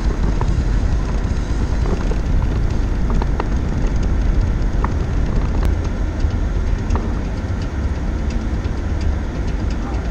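Subaru WRX driving slowly along a rough dirt road, heard from inside the cabin: a steady low rumble of tyres and suspension on the uneven surface, with scattered light clicks and ticks.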